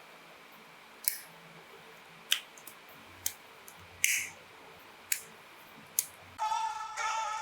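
About six sharp plastic clicks, roughly a second apart, from working on a plastic model kit's parts. Background music comes in near the end.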